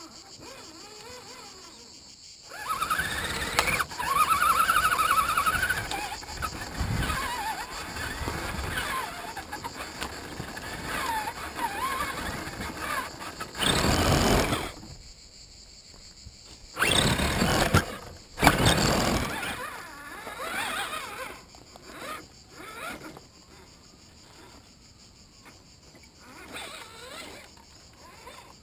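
Electric motor and gears of a 1/10 Axial SCX10 scale crawler whining, rising and falling in pitch as the throttle changes, heard close from a camera mounted on the truck, with several louder rough bursts midway as it works over the dirt trail. A steady high insect buzz runs underneath.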